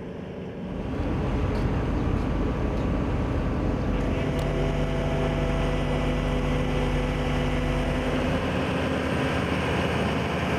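Road-paving machinery running: steady engine noise that grows louder about a second in, with a steady engine hum joining about four seconds in and easing near the end.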